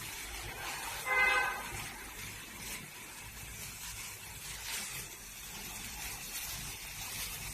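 Birthday cake fountain candle spraying sparks with a steady hiss, with a brief pitched tone about a second in.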